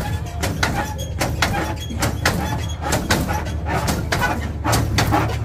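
Lowrider hopping on its hydraulics: an irregular run of sharp knocks and clanks, several a second, over a steady low rumble.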